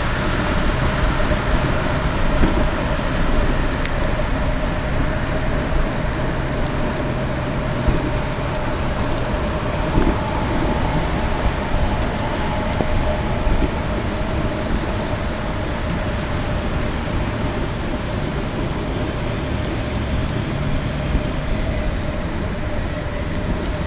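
Steady rushing road noise of a bicycle rolling along a wet paved path, its tyres hissing on the wet surface, with highway traffic underneath and a steady hum.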